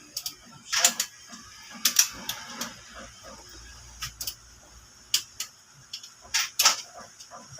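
Hand tools clicking and clinking against engine parts, about ten sharp irregular clicks.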